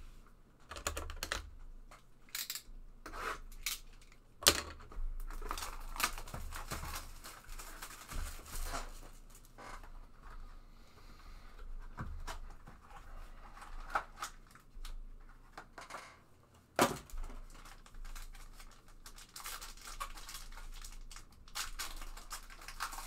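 Football card hobby box being opened by hand: wrapping tearing and crinkling, cardboard and cards rustling, with scattered sharp clicks and taps. The loudest taps come about four and a half seconds in and again near seventeen seconds.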